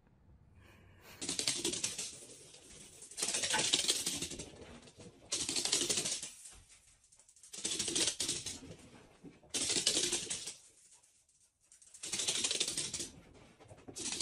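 Corgis' claws clattering on a wooden floor as they run and play, a rapid patter of clicks in about seven bursts, each around a second long and coming every two seconds or so.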